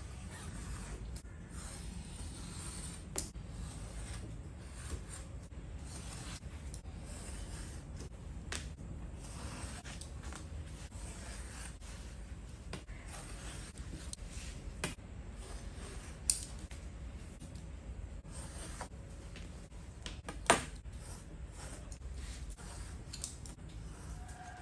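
Snap-off utility knife drawn through leather along a steel ruler on a cutting mat: repeated short scraping cuts, with a few sharp clicks over a steady low hum.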